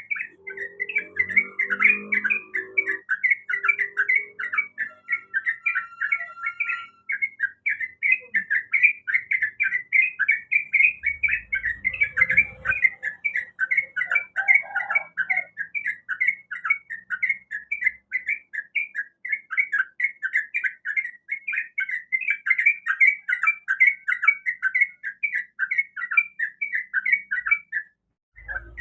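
Yellow-vented bulbul (trucukan) singing: a fast, unbroken run of short, bright chattering notes, several a second, pausing briefly near the end.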